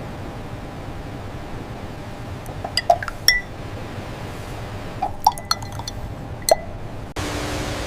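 Hard objects clinking with short ringing tones, several times in two clusters, over a steady machinery hum. Near the end the sound cuts to a louder, steady hiss.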